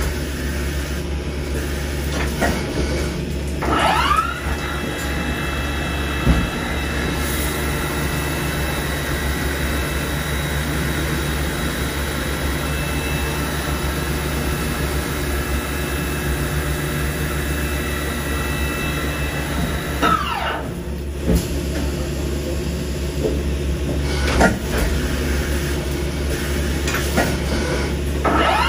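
Spindle of a 2000 Okuma MA-550VB vertical machining centre spinning up with a rising whine about four seconds in. It runs at a steady pitch while through-spindle coolant sprays from the tool, then winds down with a falling whine about twenty seconds in, and starts rising again at the very end. A steady machine hum and the hiss of the coolant run underneath, with a few sharp clicks.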